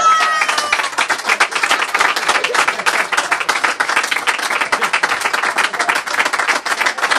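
Live comedy audience applauding a punchline: dense, steady clapping from many hands.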